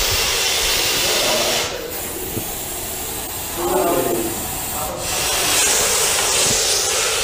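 Russell's viper hissing in long breaths: a long hiss, a weaker stretch from about two seconds in, then another strong hiss from about five seconds in. This is the agitated snake's defensive hiss.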